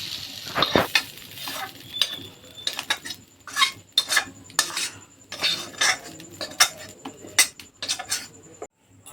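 Metal spatula scraping and knocking against a kadai as fried straw mushrooms with ivy gourd are dished out onto a plate: a dozen or so irregular scrapes and clinks.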